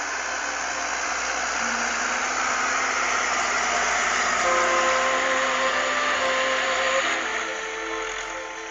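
John Deere tractor running under load as it pulls a disc plough, a steady noisy drone. The drone fades near the end as background music with held notes comes up.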